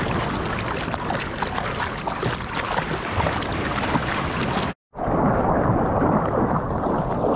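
Water splashing and sloshing around a surfboard's nose as it is paddled through small waves, heard from a board-mounted GoPro. About five seconds in, the sound cuts out for a moment and comes back as a duller, muffled rush of water.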